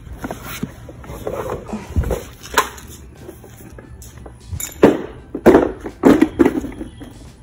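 Knocks, thumps and rustling of a child's car seat being taken out of the car and carried, with footsteps on concrete. The loudest bumps come close together about five to six and a half seconds in.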